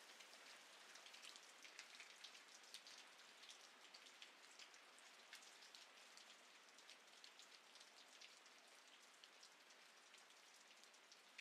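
Very faint rain patter: a soft hiss with scattered light drop ticks, barely above silence.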